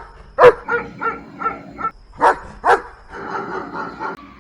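German Shepherd barking: a loud bark about half a second in, then a run of quicker, softer barks, then two more loud barks just past the two-second mark, and a softer, steadier stretch near the end.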